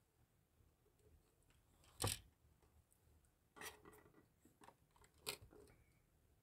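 Faint handling of a plastic drink cup: a sharp knock about two seconds in, then a few short clicks and rustles while sipping through a straw.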